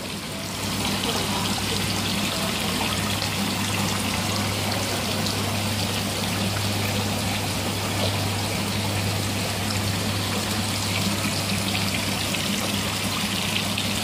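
Water pouring and trickling steadily into a fish-hatchery tank from an inlet pipe, with a constant low hum beneath it.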